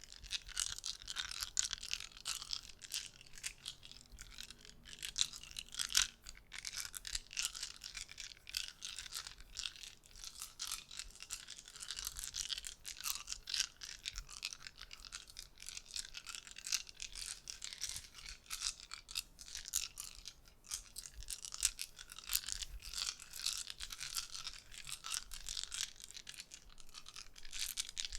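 Rapid, dense soft clicking and crackling from an ASMR trigger worked close to the microphone, going on without a break.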